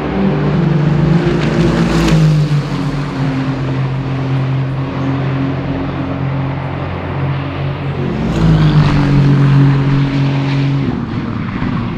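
Aston Martin Vantage GT3 Evo's 4.0-litre twin-turbo V8 racing on track, its note holding steady at high revs and stepping down in pitch about two seconds in and again near the end. A sharp crack comes about two seconds in.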